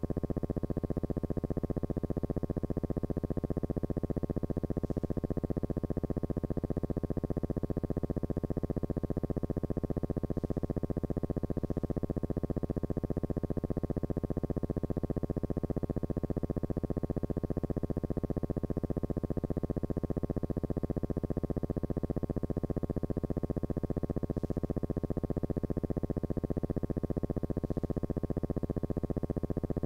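Steady electrical buzz: a constant hum with many evenly spaced overtones and a fast, even pulsing, unchanging in pitch and level. No voices are heard.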